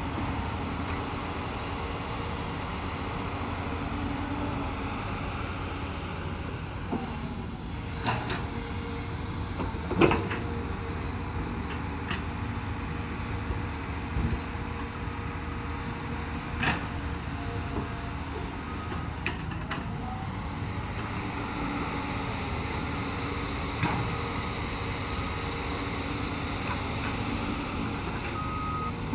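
Hyundai 330LC-9S crawler excavator's diesel engine running steadily while it digs and swings, with a few sharp knocks and clunks, the loudest about ten seconds in. A machine's reversing beeps start near the end.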